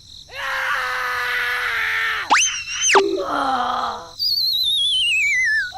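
Cartoon sound effects: a long held scream, then a quick whistle-like sweep up and back down, and a shorter, lower cry. After that comes a long wavering whistle gliding steadily down in pitch, like the classic falling sound effect.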